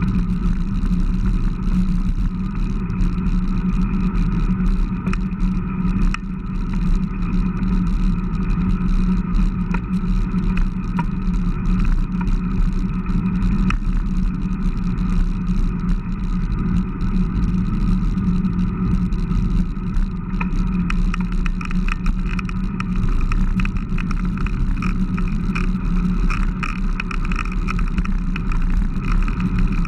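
Steady wind and road rumble picked up by a handlebar-mounted camera on a Fuji Newest 3.0 road bike riding along a paved street. Light clicks and rattles join in during the second half.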